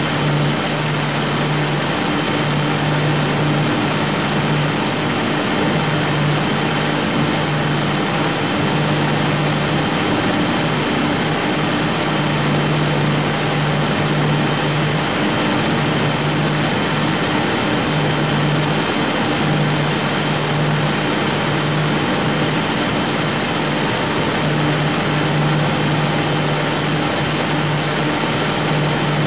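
Twin Scania 12-litre six-cylinder diesel engines of a fast motorboat running steadily, over a dense rushing hiss. A low drone in the engine note swells and fades every few seconds.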